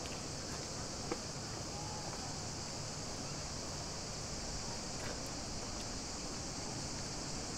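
Steady, high-pitched chorus of cicadas, an unbroken shrill buzz that holds level throughout.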